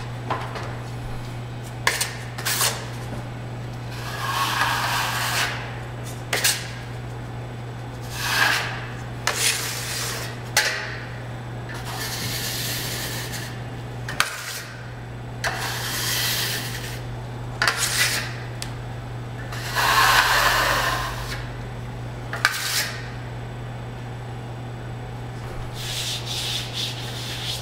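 A hand tool rubbing across a drywall joint-compound ceiling patch in irregular strokes of a second or so each, with a few sharp clicks between them, over a steady low hum.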